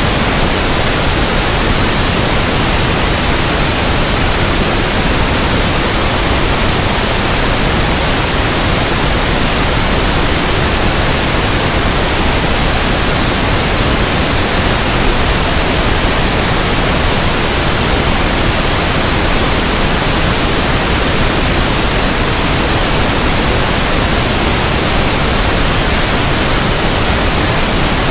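Steady pink noise: an even, unchanging hiss spread over all pitches.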